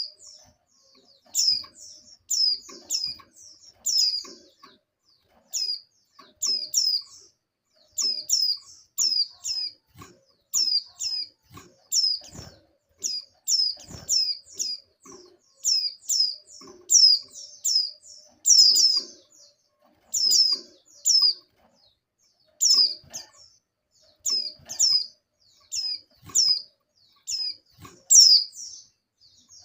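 A female white-eye (pleci) in breeding condition calling to draw a male. Short, high chirps, each sliding down in pitch, come in quick clusters of two to four, repeated about once a second.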